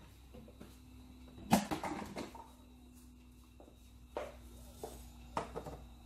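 A few sharp knocks and clinks of a metal utensil and a ceramic plate handled at a stainless steel sink, the loudest about a second and a half in, over a faint steady hum.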